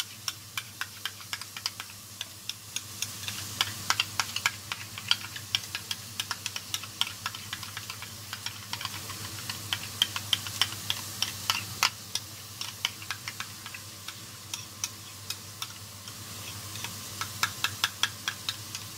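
Metal spoon clinking and scraping against a small glass bowl as a thick mayonnaise sauce is stirred, several quick clicks a second. Beneath it, a faint steady sizzle of burgers frying in a grill pan.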